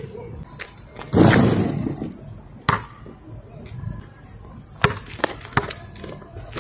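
A basketball shot hitting the hoop about a second in, a loud impact that dies away over about a second. Then the ball makes several sharp bounces on asphalt, a cluster of them near the end as it is dribbled.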